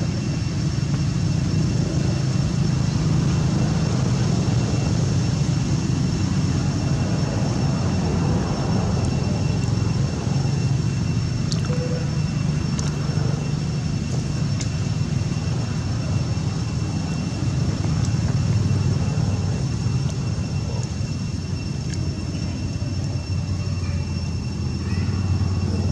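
Steady low outdoor rumble with a faint, steady high-pitched tone above it, and a few light clicks around the middle.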